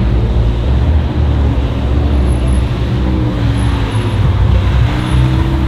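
A car engine running with a deep, steady low rumble.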